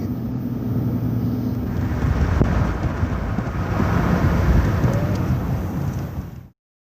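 Car on the move: steady low engine hum and road noise, turning louder and rougher about two seconds in, then cutting off suddenly near the end.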